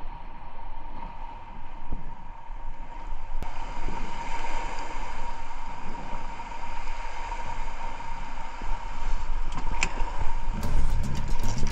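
A boat's outboard motor running at slow speed, with a steady whine over water and wind noise. Near the end it grows louder, and a fast regular ticking comes in.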